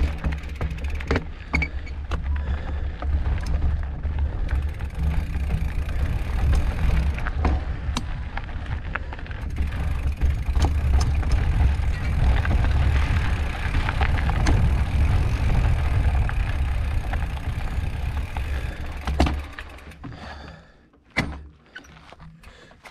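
Mountain bike riding over a rocky dirt trail: a steady low rumble of wind and motion on the camera microphone, with many sharp clicks and rattles from the tyres and bike over rocks. The rumble drops away about 19 seconds in as the bike slows.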